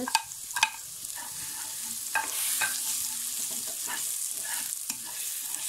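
Garlic paste and crushed red chilli sizzling in a little oil in a non-stick wok while a spatula stirs and scrapes them around the pan. There are a few sharp taps of the spatula on the pan in the first second.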